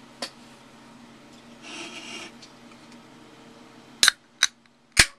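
Sharp clicks of a finger working the pull-tab of an aluminium soda can, three in about a second, the last the loudest, as the can is being opened. A brief rustle of handling comes earlier.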